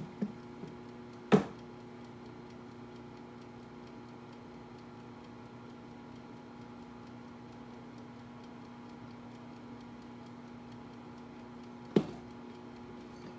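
A kitchen timer ticks quickly and evenly over a steady low hum. A bottle knocks sharply against a cabinet shelf twice, once about a second in as it is taken down and again near the end as it is put back.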